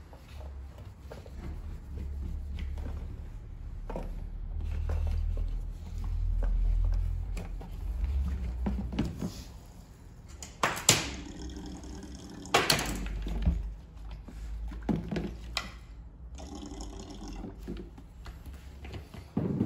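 Bench work on a small engine: low rumbling handling noise with scattered clicks, and a few sharp knocks about halfway through and near the end.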